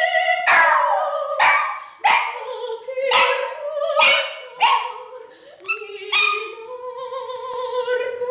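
Terrier cross dog singing along in a run of short, yelping barks, each dropping in pitch, about one to two a second. Underneath, a woman's operatic singing holds a sustained note, which carries on alone near the end as the dog's calls thin out.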